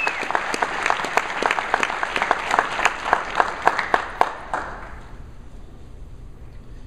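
Audience applauding, with single sharp claps standing out; the applause dies away about four and a half seconds in.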